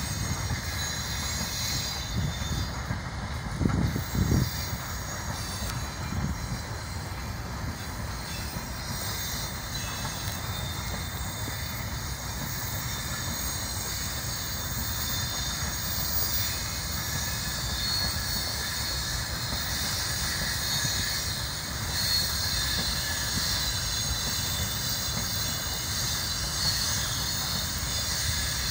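Freight train of open-top wagons rolling past: a steady rumble of steel wheels on the rails with a high hiss over it and a few low thumps about four seconds in.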